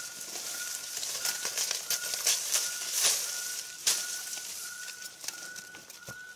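A bird repeating one short, level whistled note about every two-thirds of a second, over a high hiss of forest insects. Leaves rustle and there are a few sharp clicks of twigs, the loudest about four seconds in.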